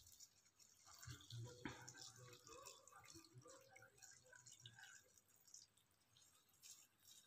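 Faint trickle and drips of water being poured into a cooking pot of sliced herbs, mostly in the first five seconds and thinning out after that.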